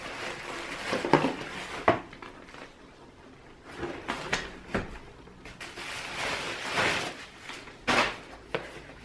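Bubble wrap rustling and crinkling as a cardboard camera box is pulled out of it, then cardboard boxes handled and set down on a table, with several sharp knocks, the loudest about a second in.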